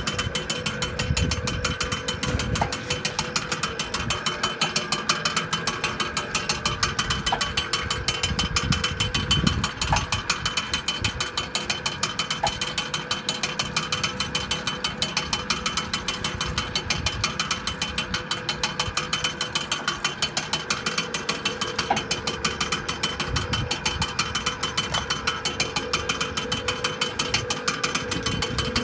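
Homemade electric-motor pulley rig running: the motor hums steadily while the belt-and-pulley drive clicks in a rapid, even rhythm.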